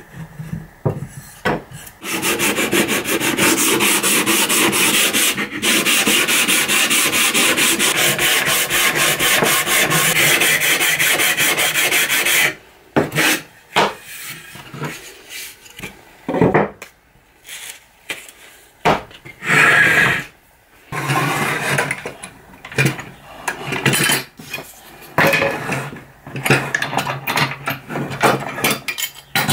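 Hand file rasping along the edges of wooden slats in fast, continuous strokes for about ten seconds, stopping abruptly. After that come scattered knocks, taps and scrapes of wooden parts being handled on a workbench.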